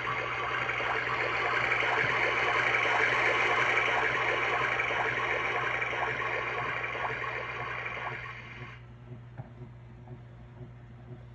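Recorded ocean surf playing from the built-in speaker of a First Mountain sound-and-motion picture: a wash of wave noise that swells, eases off, and cuts off suddenly about nine seconds in. A faint regular ticking, a little more than one tick a second, runs under it and remains afterwards.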